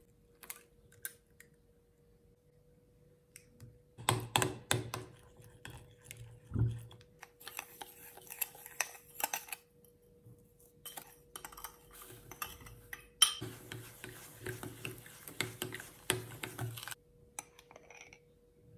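A metal spoon clinking and scraping against a glass bowl as softened butter is mashed and then sugar is stirred in, the sugar giving a gritty rasp in the later part. A faint steady hum sits underneath.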